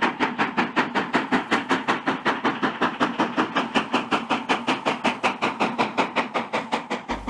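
Steam locomotive exhaust chuffing in a fast, even rhythm of about five or six beats a second.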